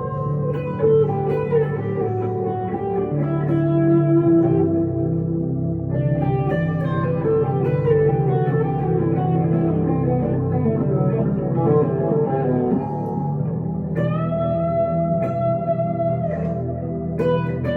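Electric guitar, a 1962 Gibson Les Paul Custom through a Two-Rock Emerald Pro tube amp, playing a melody of single notes and bends over sustained low notes, with fresh notes struck about fourteen seconds in.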